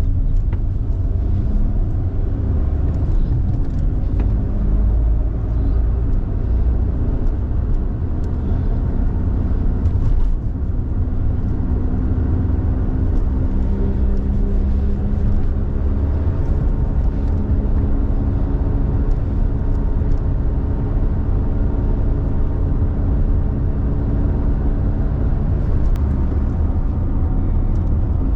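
Suzuki Lapin driving at road speed, heard from inside the cabin: steady low tyre-and-road rumble with a droning hum that drifts slowly in pitch. The hum is the noise of a worn hub bearing, which the owner says comes in above about 40 km/h.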